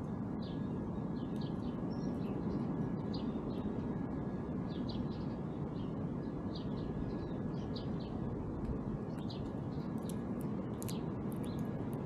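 Small songbirds chirping: many short, high chirps scattered throughout, over a steady low background rumble.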